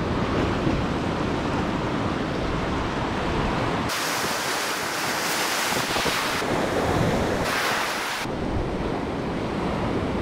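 Surf surging and washing around coastal rocks, with wind rumbling on the microphone. For a few seconds in the middle the low rumble drops away, leaving a bright hiss of white water.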